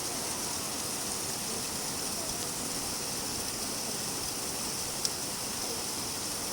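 Steady rain falling with an even hiss, and a single sharp tick about five seconds in.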